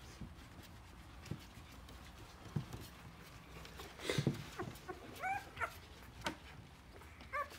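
Two-week-old Rottweiler puppies squeaking and whimpering while nursing: several short, thin, high squeaks in the second half, after a few faint clicks and a louder scuffle about four seconds in.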